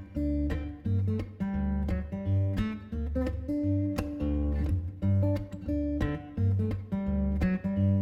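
Background music: acoustic guitar strumming in a steady rhythm.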